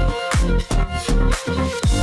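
Background electronic dance music with a fast, steady beat.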